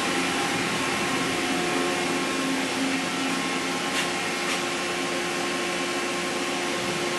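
Mori Seiki NVX5100 CNC vertical machining center powered up and running idle, giving a steady whirring hum with a few held tones from its motors and pumps. A couple of faint ticks come about four seconds in.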